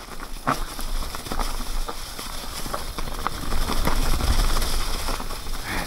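Electric mountain bike rolling downhill over a trail thick with dry fallen leaves: tyres crackling and rustling through the leaves, with scattered rattling clicks and knocks from the bike over bumps and roots.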